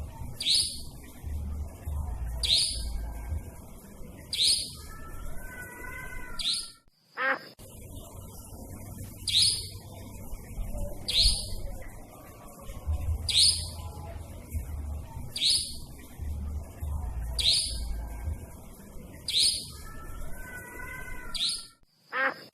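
Nightjar calls: short, high, falling notes about every two seconds, with a brief lower warbled phrase twice, over a low rumble. The recording loops, breaking off with a click about seven seconds in and again near the end before starting over.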